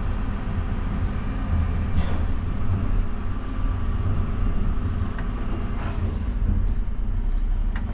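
Bin lorry's diesel engine running with a steady low drone, heard from inside the cab, with a couple of faint knocks.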